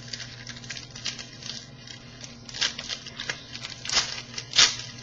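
Trading cards being handled and flipped through, a run of quick sliding and rustling strokes with the loudest near the end, over a faint steady hum.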